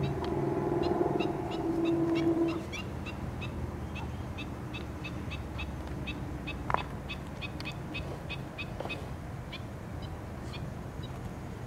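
Small birds chirping over and over in short high notes above a low steady rumble. A humming drone sounds at first and stops about two and a half seconds in, and there is one sharp click about seven seconds in.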